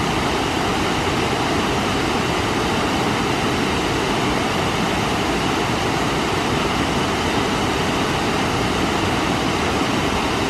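Waterfall rushing steadily, an even, unchanging noise.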